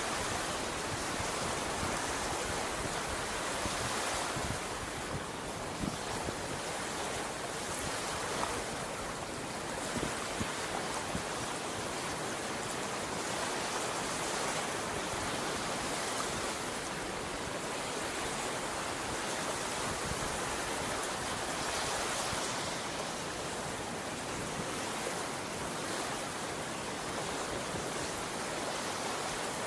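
Small ocean waves washing onto the beach: a steady hiss of moving water that swells and eases every several seconds.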